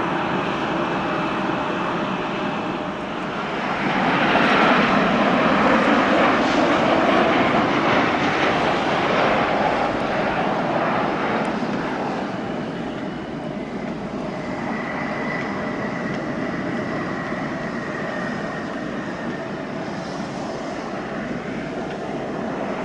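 Jeju Air jet airliner landing: its jet engine noise swells a few seconds in, stays loudest for several seconds as it passes, then eases off, with a thin steady engine whine near the end.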